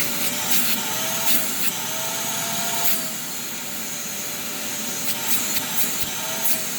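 VacMaster 5-gallon, 3-peak-horsepower wet/dry shop vacuum running at full speed just after being switched on: a steady motor whine over rushing air, with a few faint ticks.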